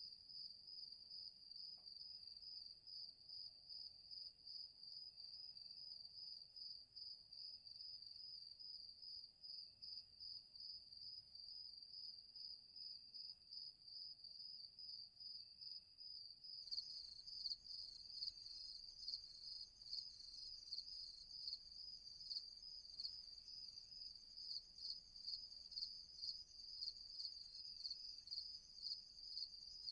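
Crickets chirping in a steady, fast-pulsing high trill, with a second, louder layer of chirping joining a bit over halfway through.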